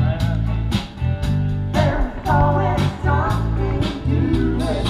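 Live band playing amplified music: bass notes, guitar and a steady drum beat of about two hits a second, with a singer's voice over it.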